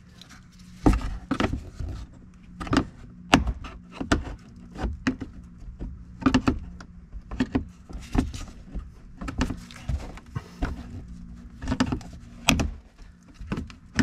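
Plastic lower trim piece of a Kia Telluride rear bumper being pried loose with a flat pry tool: irregular sharp clicks, snaps and knocks of plastic clips and tabs as it is worked down, over a faint steady low hum.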